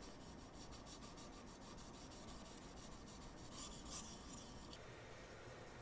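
A fluid-wetted Boride T2 600-grit sharpening stone on a guided rod sharpener rubbing back and forth along a knife edge of CPM 20CV powder steel. The strokes are faint and quick, a little louder just before four seconds in.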